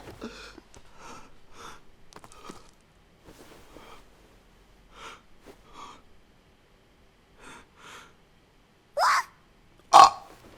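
Soft short vocal sounds, then two short loud voice-like cries near the end, the first rising in pitch.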